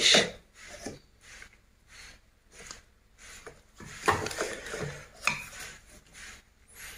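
Light rustling and clicking as the cables and plastic alligator clamps of a 12 V battery charger are handled on a desk mat, with a few louder knocks and scrapes about four to five seconds in as the charger's plastic case is moved.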